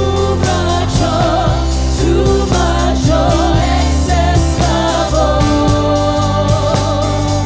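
Gospel worship music: a singer with vibrato over a band with bass and a steady drum beat.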